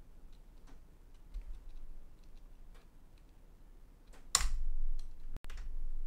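Faint, scattered clicks of a computer keyboard being typed on, with one short, much louder noise a little past four seconds in.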